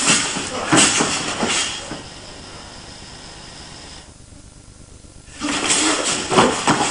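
Two people grappling on a mat: scuffing and rustling of bodies and uniforms with dull thuds. The scuffling dies away after about two seconds, leaving only a steady hiss, and starts again about five and a half seconds in.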